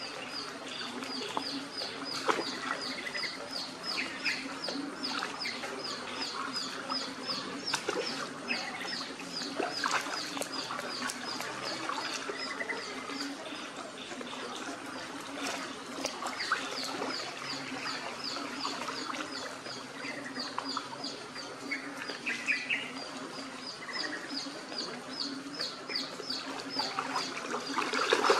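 Young dogs wading and splashing in a shallow muddy puddle, with scattered small splashes. Behind them a bird gives a long run of short high chirps, several a second, which pauses for a few seconds midway and then resumes.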